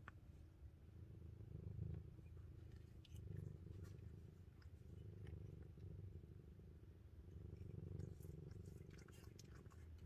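Domestic kitten purring softly: a faint low rumble that swells and eases with its breathing.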